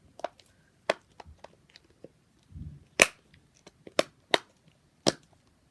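A handheld plastic fidget toy being worked, giving a series of sharp, irregularly spaced pops and clicks, the loudest about three seconds in.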